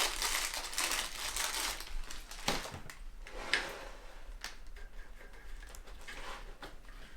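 Hands working small parts on a compressor: rustling for about two seconds, then a few separate sharp clicks and quieter fiddling.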